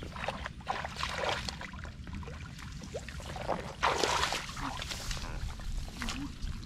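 Shallow water splashing and sloshing in irregular bursts, with a louder splash about four seconds in.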